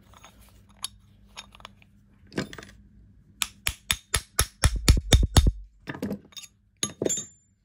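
Light metal-on-metal hammer taps on a punch through the body of a seized Starrett No. 657 magnetic dial-gauge stand, driving out the stuck magnet. A few scattered clinks, then a quick run of about ten sharp ringing taps in two seconds, then a few more clinks.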